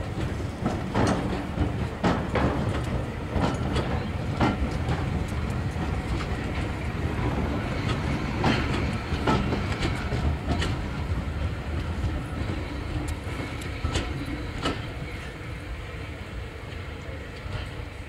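Steam-hauled train of passenger coaches rolling past: a steady low rumble, with the wheels clicking sharply every second or two over rail joints and points. The rumble slowly fades near the end.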